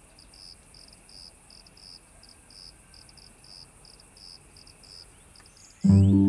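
Crickets chirping in short, high, repeated pulses, about three or four a second. Near the end, plucked harp-like music starts abruptly and drowns them out.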